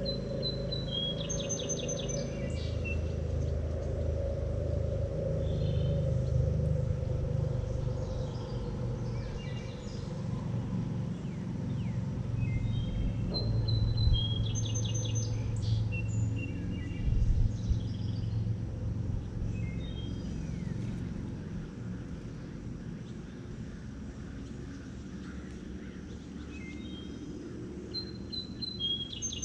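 A songbird sings the same short phrase of whistled notes with a quick trill three times, about every 13 to 14 seconds, over a steady low rushing noise.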